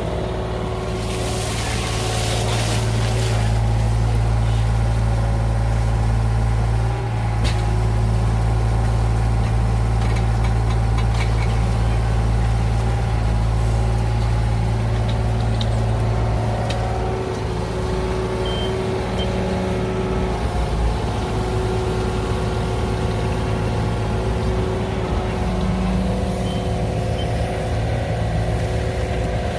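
Excavator's diesel engine running steadily while digging, with a hiss lasting a couple of seconds near the start.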